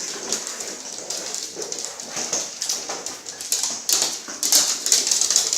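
Puppies playing: a run of quick clicks and scuffling noises that gets busier after about three and a half seconds.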